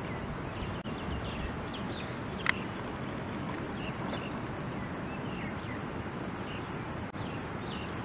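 Steady outdoor background noise with faint, short high chirps of small birds scattered through it, and a single sharp click about two and a half seconds in.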